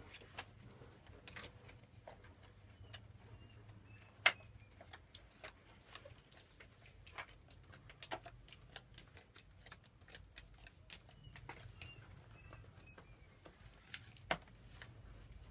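Playing cards being dealt and slapped down onto a wooden floor: scattered light clicks and taps, with a sharp slap about four seconds in and another near the end. Faint bird chirps in the background.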